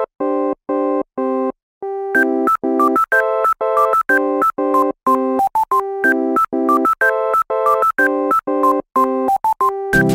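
Background music: short repeated chords a little over two a second, joined about two seconds in by a faster, bouncing melody.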